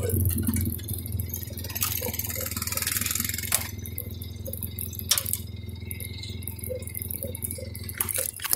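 Steady low hum of an idling vehicle engine, with scattered light clicks and rattles throughout and a few sharper ticks.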